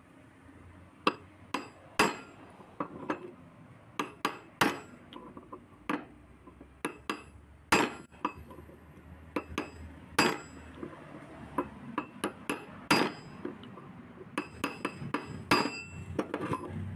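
Hammer tapping repeatedly on a brass ball valve, sharp metal-on-metal strikes with a short ring, at an uneven pace with some quick runs of taps. The taps land on the seam of the seized threaded joint to loosen it so the valve body can be unscrewed.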